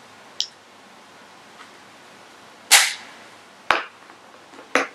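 Four sharp clicks and knocks of small plastic cosmetic cases being handled: a makeup compact closed and put away, and items knocking together in a makeup pouch. The loudest click comes a little past halfway.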